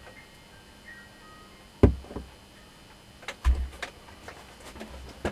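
A few knocks and clunks of a small armature and tools being handled on a metal workbench. The two loudest, each with a dull thud, come about two seconds in and just past the midpoint, with lighter clicks around them.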